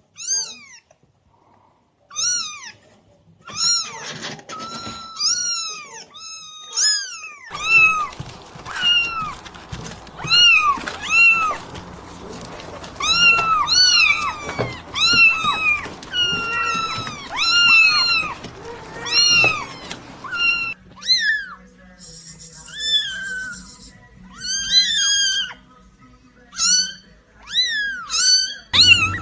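Kittens meowing over and over: high, thin mews that rise and fall, often several in quick succession. The background noise changes abruptly about 8 seconds in and again about 21 seconds in.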